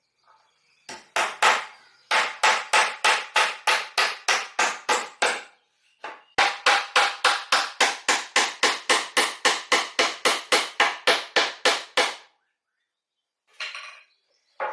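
Hammer striking wood in two long runs of quick, even blows, about four a second, with a short pause about six seconds in.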